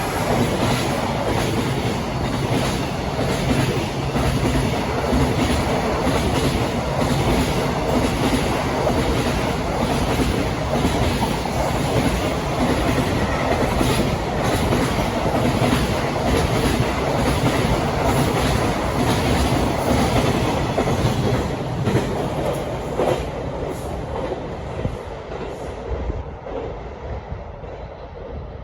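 JR Freight freight train passing close by, its wagons' wheels clacking over the rail joints with a steady rumble, dying away over the last few seconds as the train moves off.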